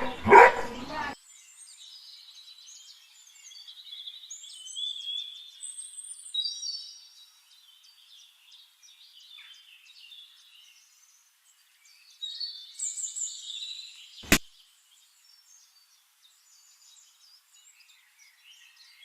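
A dog barks at the very start. Then birds chirp and trill for the rest of the time, in two spells. A single sharp click comes about fourteen seconds in.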